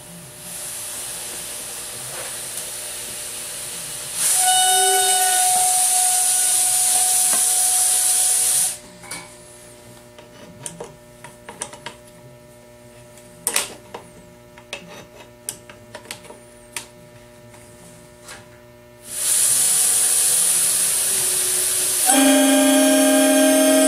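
Compressed air at 90 psi rushing through the number 5 bell of a Nathan M5 locomotive air horn, a loud hiss with only a thin faint tone while the diaphragm is still loose. Between two blasts come scattered metal clicks and knocks as the bell's diaphragm cap is tightened with a wrench, and about 22 seconds in the bell catches a solid, steady horn note as the diaphragm takes more tension.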